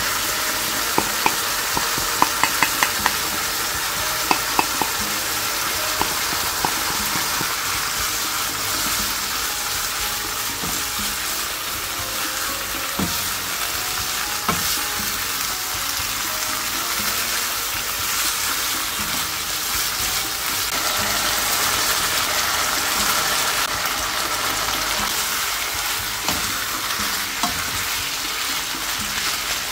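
Pork belly sizzling in a nonstick frying pan over medium heat as a wooden spatula stirs it through its chili-paste seasoning. A quick run of sharp clicks comes in the first few seconds, then a few scattered knocks.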